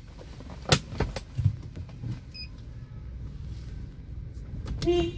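Hyundai Grand i10 running, heard from inside the cabin as a steady low rumble, with two sharp clicks about a second in and a short pitched squeak or beep near the end.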